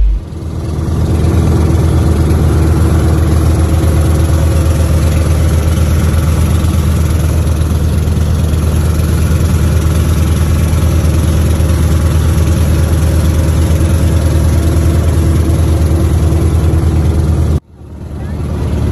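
Outrigger boat's inboard engine running steadily while under way, a loud, even drone with water and wind hiss over it. The sound breaks off abruptly near the end and swells back briefly.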